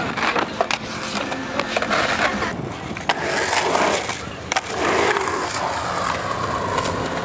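Skateboard wheels rolling on a concrete bowl, a continuous rumbling hiss broken by frequent sharp clacks and knocks of the board.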